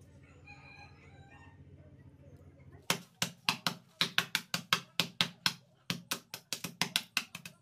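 Hand hammer repeatedly striking a porous rock wrapped in a cloth on a tiled floor, breaking it into small pieces. The blows start about three seconds in and come quickly, about four or five a second.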